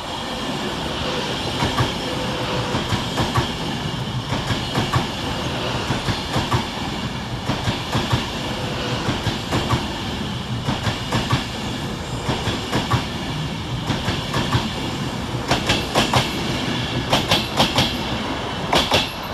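Class 390 Pendolino electric train passing the platform: a steady rumble and rush of the carriages, with wheels clicking over rail joints, the clicks coming in quick clusters near the end.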